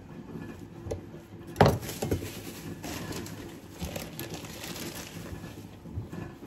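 Kitchen handling sounds: a sharp knock of something set down hard about one and a half seconds in, then lighter clinks and rustling over a steady low hum.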